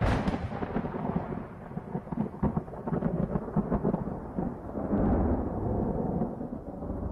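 Intro sound effect: a deep rumble laced with many sharp crackles, with no music or voice. It swells again about five seconds in and dies away near the end.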